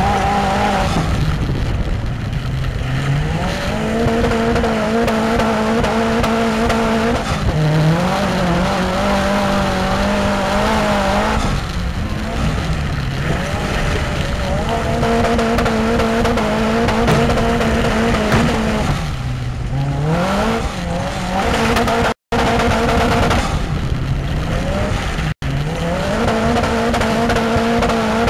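Onboard sound of a Saab-engined stock car racing: the engine holds steady high revs along the straights, then its pitch drops as the driver lifts for each corner and climbs again on acceleration, repeating lap after lap. Twice near the end the sound cuts out for a moment.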